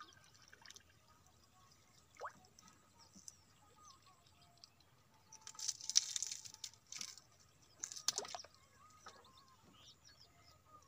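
Pond water splashing and dripping as a wet fishing line tangled with water-lily stems is hauled out by hand, loudest in two short bursts near the middle.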